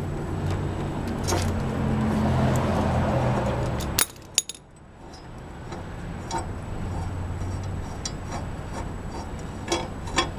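Metal hand tools on concrete: two sharp clinks about four seconds in as the socket wrench is set down. Scattered lighter clinks follow as the loosened mower blade is worked off its bolt. A steady low hum runs under the first four seconds and stops suddenly just before the clinks.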